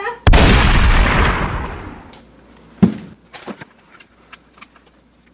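A loud shotgun-blast sound effect goes off once and dies away over about two seconds. About two and a half seconds later comes a single sharp thud, followed by a few light knocks.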